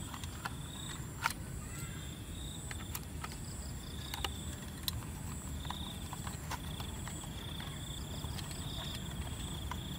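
Faint scattered clicks and taps of a small screwdriver and plastic toy-truck parts being handled while a screw is driven into the truck's underside. Over a steady outdoor background, with high-pitched chirping coming and going.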